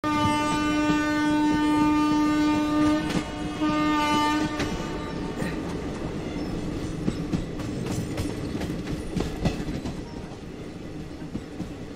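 Passenger train horn sounding twice, a long blast of about three seconds and a short one of about a second, then the steady rumble of the moving train with the clatter of its wheels over the rail joints.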